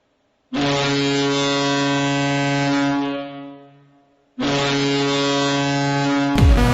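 Hockey arena goal horn sounding two long, steady, low blasts: the first trails off over about a second, the second is cut off near the end by loud music starting suddenly.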